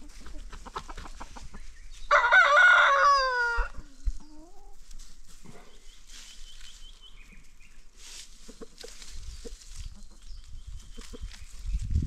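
A rooster crows once, about two seconds in: a loud call of about a second and a half that drops in pitch at the end. Hens cluck softly around it.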